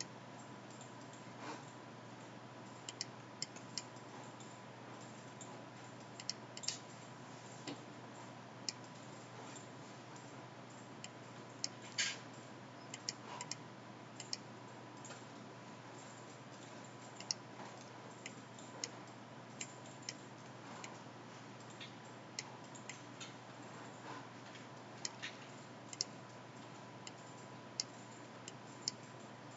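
Irregular, scattered computer mouse and keyboard clicks, sharp and short, over a steady low electrical hum.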